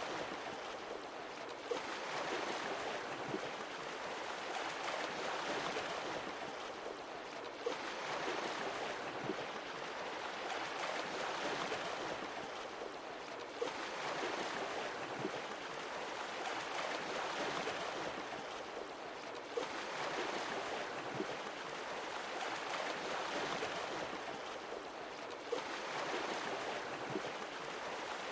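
Sea waves washing in and out, the surf rising and falling in even swells about every six seconds, with a short click where each swell begins.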